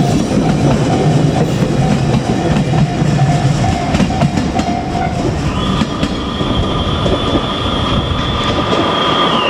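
JR Kyushu 817 series electric train passing over a level crossing, its wheels rumbling and clattering on the rails. The crossing's warning bell rings in a regular pulse until about halfway, then a steady high whine sets in and holds until near the end.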